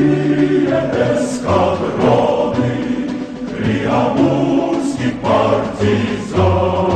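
Music: a choir singing a march-like song over instrumental backing with a regular bass pulse.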